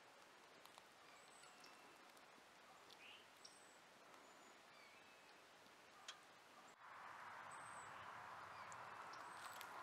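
Faint wild birdsong: short high chirps and whistles repeated every second or two over quiet outdoor stillness. About seven seconds in, a soft steady hiss rises beneath them.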